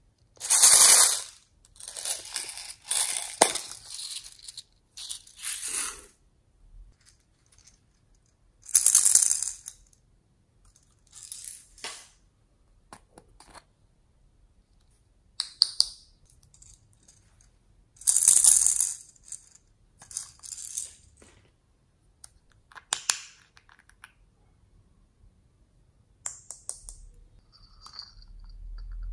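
Glitter and sequins rattling in small plastic cups shaken by hand: about a dozen short rattles a few seconds apart, the loudest about a second in, near nine seconds and near eighteen seconds.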